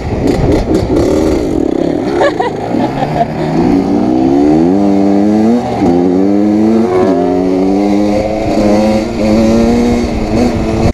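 Dirt bike engine heard from the rider's own bike, accelerating hard: the pitch climbs and drops sharply at each upshift, twice in the middle, then holds steady at speed. Wind rushes across the microphone.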